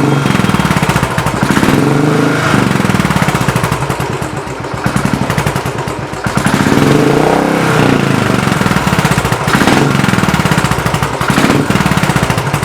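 Royal Enfield 500cc single-cylinder engine running through a Greasehouse Thumper free-flow aftermarket silencer, with a steady thumping exhaust beat. It is revved up and drops back twice, about two seconds in and again about seven seconds in, peaking at 84 decibels on the test.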